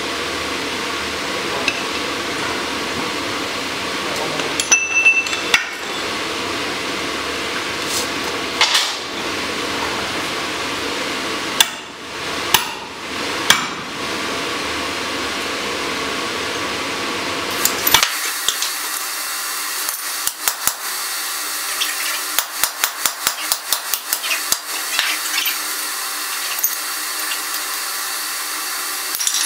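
Sledgehammer blows on a steel drift driven into a red-hot bar on a striking anvil, drifting the hardy hole: sharp metallic strikes a second or more apart over a steady background noise. About two-thirds through, the background drops out, followed by a quick run of lighter strikes, about four a second.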